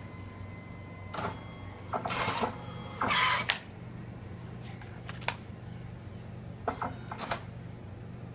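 Photo booth printer running over a steady low hum, with a series of short mechanical clicks and whirring bursts as it feeds out a photo strip; the loudest burst comes about three seconds in.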